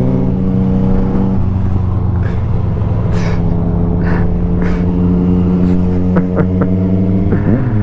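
Motorcycle engines running at steady cruising revs, heard from the saddle under a rush of wind. The hum dips slightly in pitch about a second and a half in, then holds steady.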